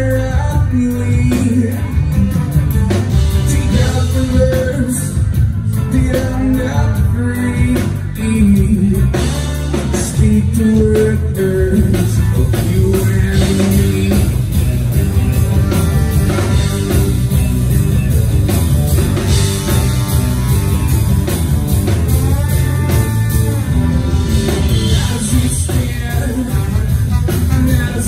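A live rock band playing loudly without a break, with drums, bass and guitar.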